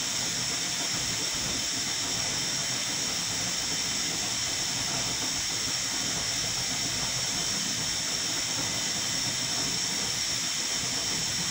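A steady, even hiss at one level throughout, with no other sounds.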